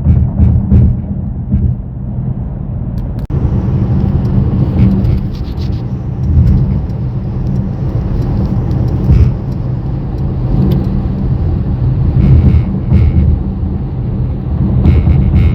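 Cabin noise of a 2024 Mercedes-AMG GLE63 S driving at highway speed: a steady low road-and-drivetrain rumble with a few faint short ticks. The sound breaks off abruptly and resumes about three seconds in.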